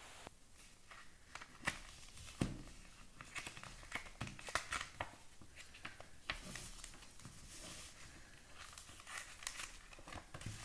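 Paper wrapper and foil of a chocolate bar crinkling and rustling as it is handled and unwrapped by hand, in faint, irregular crackles.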